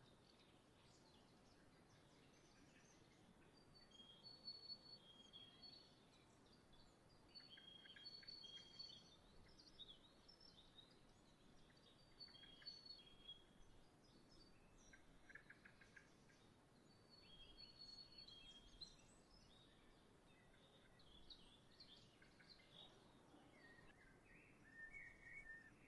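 Faint chirps and short calls of small songbirds at a backyard feeder, coming in bursts every few seconds over a steady low background hiss.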